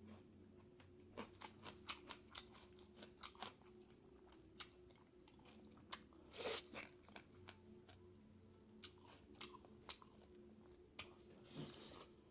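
Close-up eating sounds: a person chewing pork and bamboo shoot curry, with many small sharp crunches and mouth clicks and an occasional louder smack.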